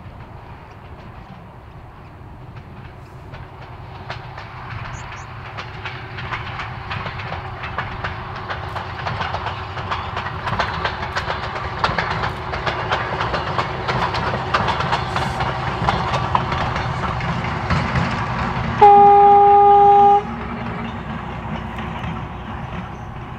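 Vintage diesel-electric rail motor with two Detroit Diesel 6-71 engines passing, its engines running and its wheels clicking over the rail joints, growing louder as it nears. About three-quarters of the way in it sounds one horn blast of about a second and a half, the loudest sound, and the running noise then fades away.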